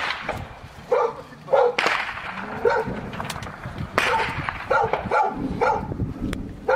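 A dog barks repeatedly, about seven short barks, while sharp gunshots crack with long echoing tails, two loud ones about two seconds and four seconds in.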